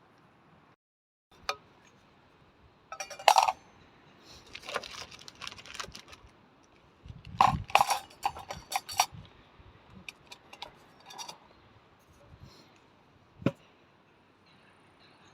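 Irregular clinks, knocks and short clattering bursts of hard objects being handled, like camp dishes or utensils. The loudest clusters come about three seconds in and again around eight seconds, with a single sharp click near the end.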